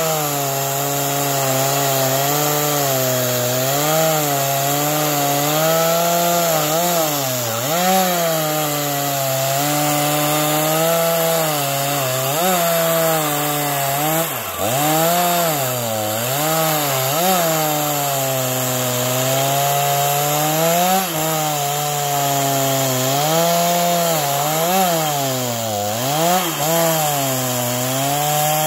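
Stihl MS 231 two-stroke chainsaw ripping a log lengthwise along the grain. It runs at high speed under load, and its pitch dips and recovers again and again as the chain bogs in the cut.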